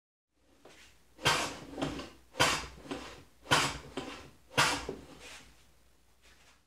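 Stanley No. 5 hand plane pushed along a shooting board: four cutting strokes about a second apart, each a sharp swish that quickly fades.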